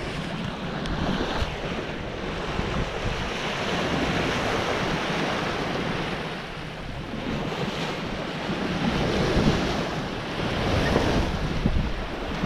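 Water rushing and splashing along a sailing yacht's hull as the boat meets the wake of a passing ferry, with wind buffeting the microphone; the noise swells and eases over several seconds.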